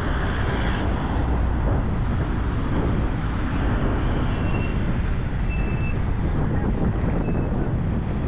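Steady road traffic on a busy multi-lane road: cars, vans and a motorcycle passing, their engines and tyres making a continuous, even noise.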